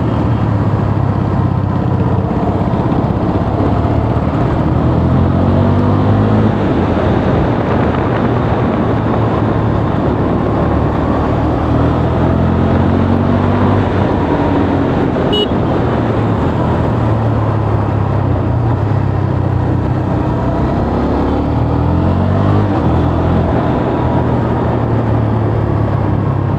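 KTM RC 390's single-cylinder engine running under way, its pitch rising three times as it accelerates through the revs and settling back in between.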